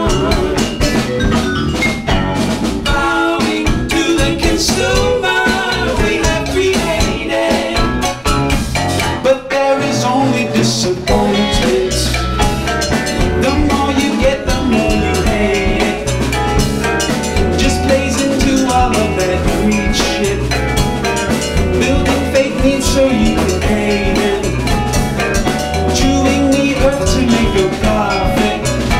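Live band playing: drum kit and bass under guitar and vibraphone. About nine seconds in, the low end drops out for a moment before the groove comes back in.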